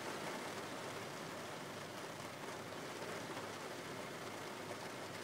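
Steady rain falling, heard from inside a car: an even hiss with no single drops standing out.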